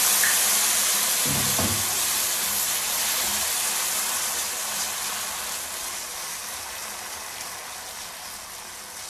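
Milk sizzling in a hot pan of melted butter and sugar as caramel sauce is started, loud at first and dying down steadily while it is stirred. A brief low thump about a second and a half in.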